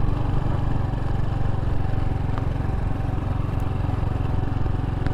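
Honda Pop 110i's small single-cylinder four-stroke engine running steadily at low revs, with no revving up or down.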